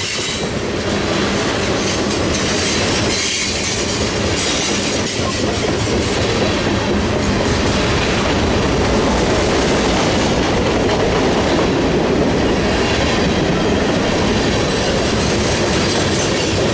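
Freight train of tank cars and boxcars passing close by, a loud, steady rattle and rumble of the cars' wheels running over the rails.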